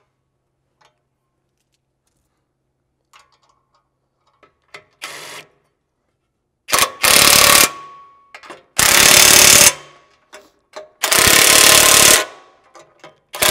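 Ridgid cordless impact driving half-inch hex bolts tight through a 3/4-inch socket. It gives a short burst about five seconds in, then hammers in bursts of about a second each, four times, the last one starting just at the end.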